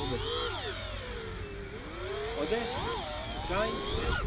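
FPV racing quadcopter's motors whining, the pitch sweeping up and down repeatedly as the throttle changes, over a low rumble.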